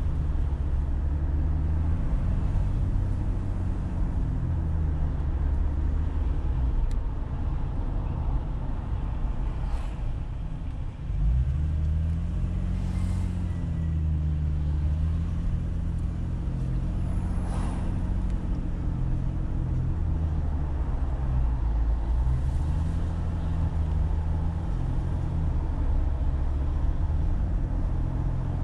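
A car's engine and road noise while driving, the low engine note slowly rising and falling in pitch as the car speeds up and eases off, with a brief drop in level about eleven seconds in.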